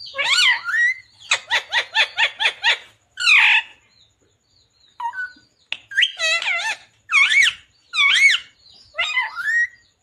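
Rose-ringed (Indian ringneck) parakeet calling: a string of loud, pitched calls that bend up and down, including a quick run of short repeated notes about a second in, a short pause near the middle, then several more calls.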